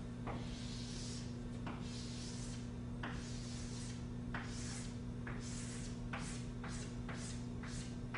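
Chalk scraping on a blackboard in a series of drawing strokes, a stroke every second or so at first and several a second near the end, over a steady low electrical hum.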